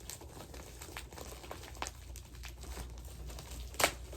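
Plastic packaging and tape crinkling and rustling as it is handled and cut with scissors, with scattered small crackles and one sharp, louder click near the end.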